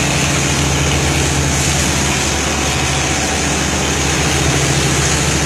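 Boat engine running steadily at sea, a low even drone under a constant rush of wind and water.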